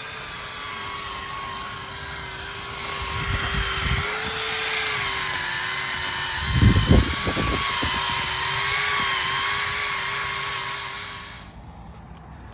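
DeWalt cordless drill running steadily while cleaning an Alpha sterndrive's metal housing. Its whine wavers slightly as it loads. A few louder rough bursts come about six to seven seconds in, and the drill stops near the end.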